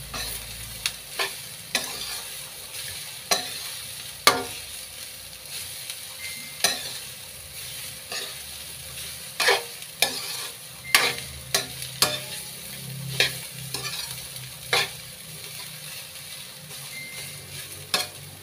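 Metal spoon stirring sliced bamboo shoots in a wok, scraping and clinking against the pan at irregular intervals over a steady sizzle of sautéing.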